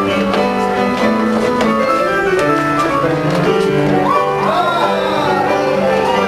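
Orchestral film score with piano, playing steadily.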